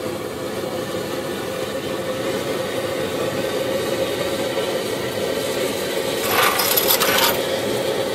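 Petrol pressure burner of an NVA field kitchen, a blowtorch-type burner fed from a hand-pumped tank, running with a steady rushing noise and a faint hum just after being lit, flame still flaring out at its base. About six seconds in, a louder hiss lasts about a second.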